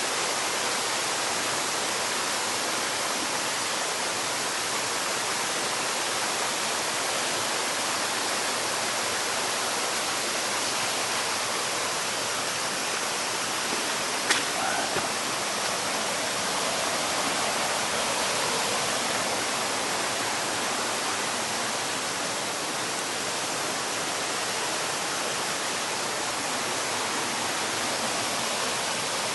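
Mountain stream water rushing steadily, with one sharp click about halfway through.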